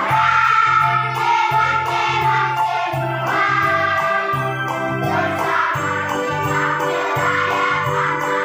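Children's choir singing a Christmas song together over instrumental accompaniment with a steady bass beat.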